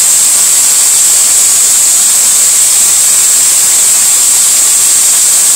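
Electric drill running steadily at high speed, spinning a Ford 302 engine valve while it is scrubbed clean of carbon: a loud, even, high-pitched hiss.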